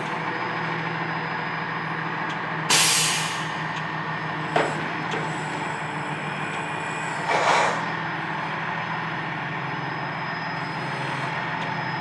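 Utility boom truck's diesel engine running steadily while its crane works to lift a concrete pad, with a sharp hiss of released air about three seconds in and a shorter, duller burst of noise a little past the middle.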